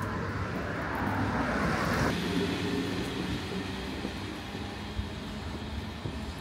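Steady running noise of a vehicle in motion, with a higher hiss that drops away suddenly about two seconds in.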